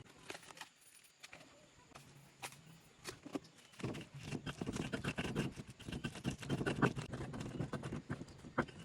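Stone pestle knocking and grinding in a stone mortar while sambal terasi is pounded. A few separate knocks at first, then a quick run of knocks from about halfway through.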